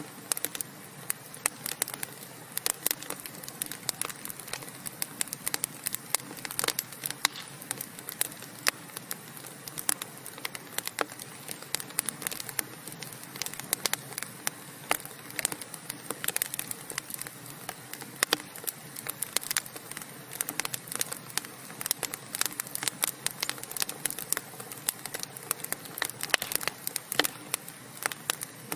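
Wood fire burning: a steady low hiss with many sharp, irregular crackles and pops from the burning logs.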